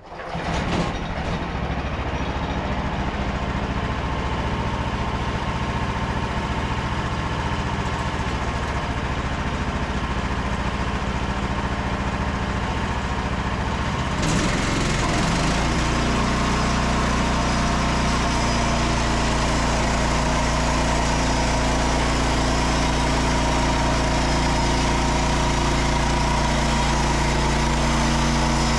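Portable bandsaw mill's engine comes up to speed at the start and runs steadily. About halfway through it gets a little louder and a hiss fills the high end as the 1.5-inch bandsaw blade enters the larch log and begins cutting a board.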